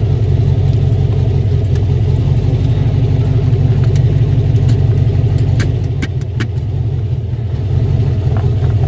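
Engine and road noise heard inside the cabin of a freshly rebuilt vehicle on the move: a steady low drone that eases for a moment about six seconds in and picks up again near the end. A few sharp rattles or clicks come a little past halfway.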